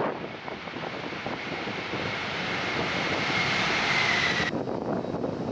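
Boeing 747 on its landing roll on a wet runway: the roar of its jet engines with a high whine that sinks slightly in pitch. About four and a half seconds in it cuts off suddenly, giving way to the quieter sound of a twin-turboprop airliner landing.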